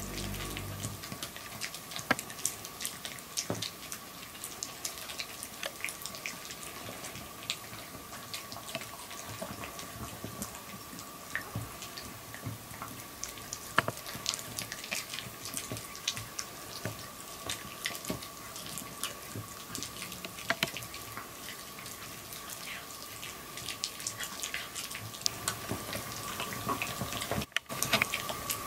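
Maltese dog gnawing a hard stick-shaped dog chew: irregular wet clicks and crunches of teeth on the chew, with a faint steady hum underneath.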